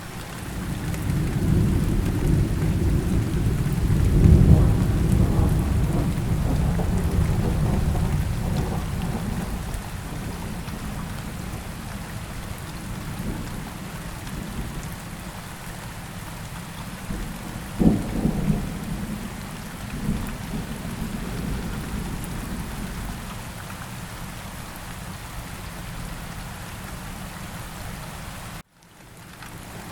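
Steady rain falling, with rolling thunder that swells over the first several seconds and peaks about four seconds in. A sharp thunderclap with a short rumble comes a little past halfway. Near the end the sound cuts out for a moment and fades back in.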